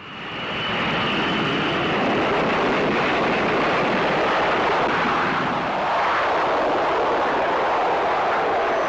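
Carrier-based jet aircraft engines running at high power: a steady, loud rush with a high whine above it, rising in over the first second.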